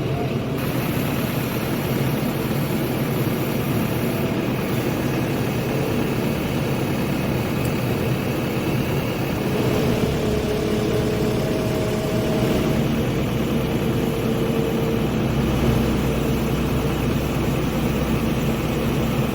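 Heavy diesel engine running steadily, a deep rumble; about halfway through a higher steady whine joins it and the low rumble grows stronger.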